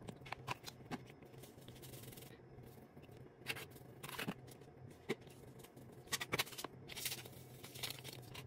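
Faint, scattered clicks, taps and short scratchy rustles of spice containers being handled and shaken over a plastic tub while a dry rub is mixed. A low steady hum sits underneath.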